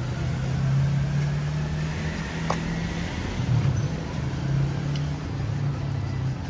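Street traffic, with a motor vehicle's engine running steadily close by as a low hum, and a brief squeak about two and a half seconds in.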